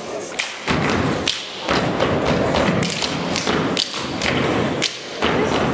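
Step team stepping: sharp foot stomps on the stage floor and hand claps in a quick, uneven rhythm, several strikes a second.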